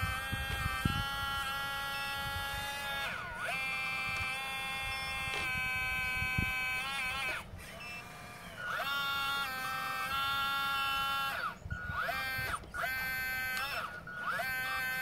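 Hydraulic pump motor of a radio-controlled Cat 320 model excavator whining steadily. Its pitch sweeps down and back up several times and cuts out for about a second midway, with a few soft knocks from the bucket working the soil.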